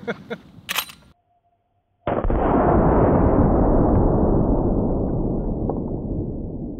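A few sharp clicks, then about two seconds in a sudden deep, slowed-down boom of a Henry lever-action .45-70 rifle shot hitting a bowling ball. It fades as a long rumble over about four seconds, its top end sinking as it fades.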